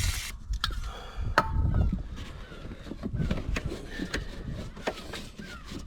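A brief hiss of aerosol penetrating spray right at the start, then scattered metallic clicks and dull knocks as mole grips work a rusted broken stud back and forth in its threads, with a cluster of knocks about a second and a half in.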